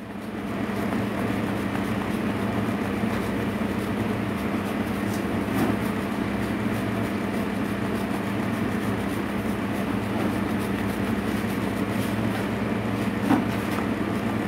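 Steady machine hum with an even rushing noise, while mozzarella is rasped on a hand grater.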